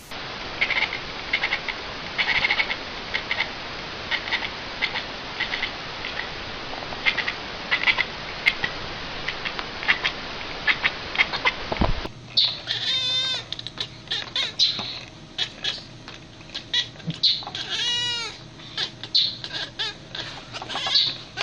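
Cat vocalising in short chirps and squawk-like calls across two clips. The first half is over a steady hiss. After a cut about halfway, there is a quick run of rising-and-falling squeaky chirps with a few longer, drawn-out meow-like calls.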